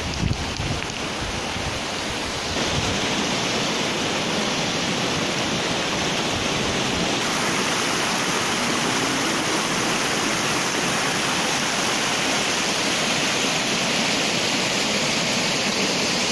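Steady rush of river water pouring over rock ledges in small cascades and rapids. Wind buffets the microphone with a low rumble for about the first three seconds.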